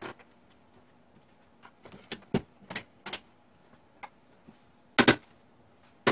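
Sharp wooden knocks and clacks as a rocking-chair frame is fitted together: a few lighter clacks between two and three seconds in, then two loud double knocks about a second apart near the end, a mallet tapping the rail tenons home into the rockers' mortises.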